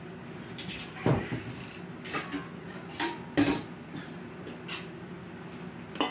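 Kitchen clatter: several separate knocks and thumps of a cupboard and kitchenware being handled, ending with a stainless steel bowl set down on the counter near the end, over a steady low hum.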